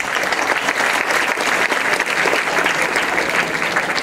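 Audience applauding, many hands clapping together at a steady level.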